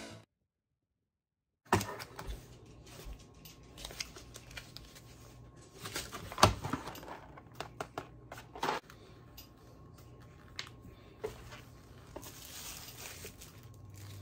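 Handling noises as a cardboard pasta box and a plastic-wrapped cabbage are shown: irregular taps, clicks and plastic crinkling over a faint steady hum, starting about two seconds in after a short silence.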